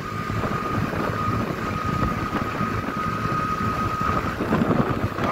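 Wind rushing over the microphone together with the rumble of a motorcycle engine and its tyres on the road, riding at steady speed. A thin steady whine runs along with it and stops about four seconds in.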